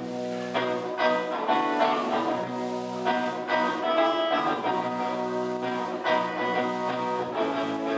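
Live band playing amplified music: electric guitars over a drum kit.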